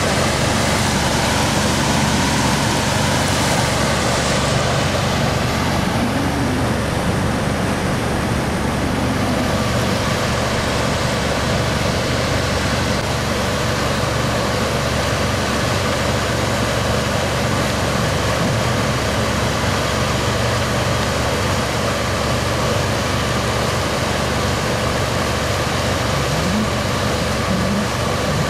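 Boat engine running steadily under way while towing, with water rushing and splashing along a wooden hull. The rushing eases after the first few seconds.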